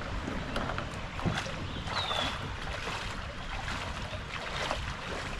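Creek water lapping and splashing around a kayak, with small irregular splashes and a low rumble of wind on the microphone. A short high falling chirp about two seconds in.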